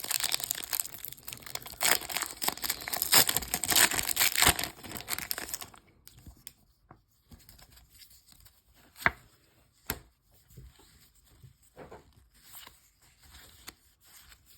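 Pokémon Crown Zenith booster pack's foil wrapper crinkling and being torn open for about six seconds, then quieter handling with a couple of sharp clicks.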